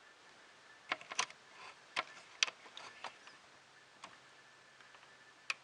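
Sharp little clicks and taps of a motor driver board being handled and pushed into its socket: a quick cluster over about two seconds, then two single clicks later.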